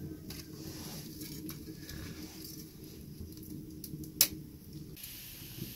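Wood fire crackling in a small metal stove as split sticks are pushed into the firebox, with scattered clicks and knocks of wood and one sharp pop about four seconds in.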